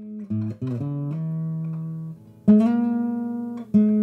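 Background music on guitar: a few quick picked notes, then two loud plucked notes, each left to ring and fade, the second near the end.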